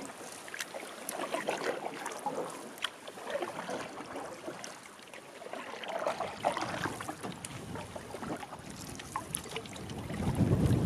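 Paddle strokes splashing in lake water and water lapping around a canoe, with scattered small knocks, uneven in strength.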